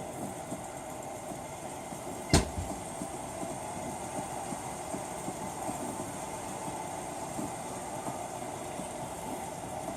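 Steady background hum with light scuffling ticks, and one sharp thump about two and a half seconds in, typical of cats play-fighting and knocking into something.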